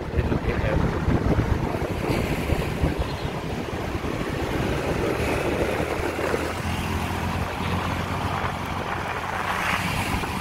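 Motorcycle engine running while riding, with wind rushing over the microphone. A steady low engine drone becomes clearer about six or seven seconds in.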